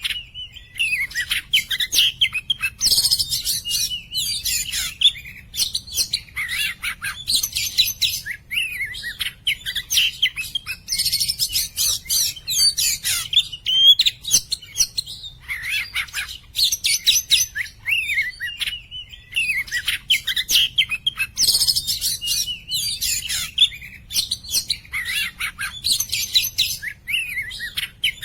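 Oriental magpie-robin singing without pause: a varied run of clear whistled phrases and rapid chattering trills, with louder, denser passages every few seconds.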